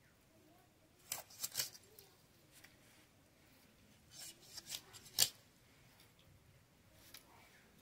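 A blade cutting food by hand: two bursts of short, crisp slicing strokes, one about a second in and a longer run between about four and five seconds, ending with the loudest stroke.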